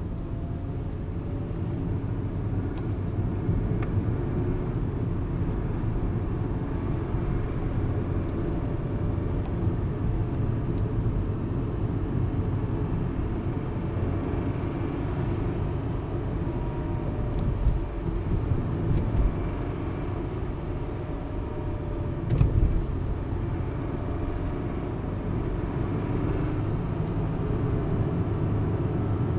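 2007 Nissan Altima's 3.5-litre V6 engine running steadily with a low rumble, recorded to show an odd noise the owner calls weird. Twice, past the middle, there is a brief louder bump.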